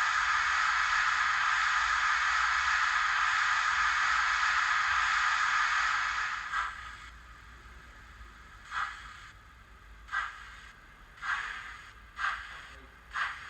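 Recorded J15 steam locomotive sound played by a Zimo MX648R sound decoder through the small speaker of a Hornby model: a steady steam hiss for about six seconds, which then stops. Exhaust chuffs follow, slow at first and coming closer together as the locomotive starts away.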